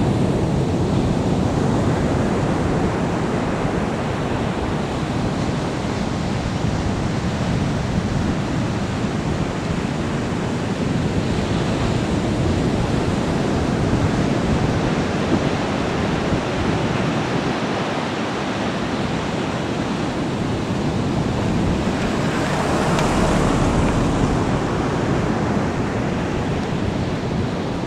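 Steady rushing noise of a taxiing twin-jet airliner's engines, mixed with wind on the microphone, swelling a little near the end.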